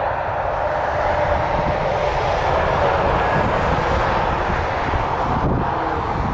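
Case 590SM loader backhoe's diesel engine running, a loud, steady drone that swells slightly about a second in.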